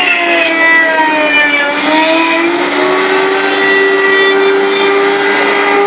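Router motor on a JDS Multi-Router running at speed while its bit cuts a tenon in wood. The whine sags in pitch as the bit takes load, recovers about two seconds in, then runs steady.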